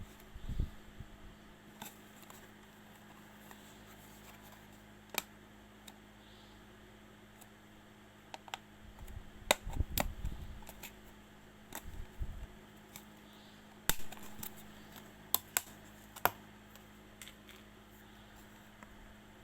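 Scattered sharp clicks and a few light knocks, irregularly spaced, over a steady low hum.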